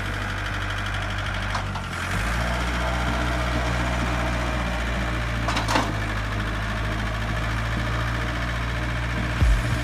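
Iseki TA417 tractor's four-cylinder Isuzu engine running steadily with a low hum, its note shifting slightly about two seconds in while the front loader raises its bucket. A short clank sounds near the middle.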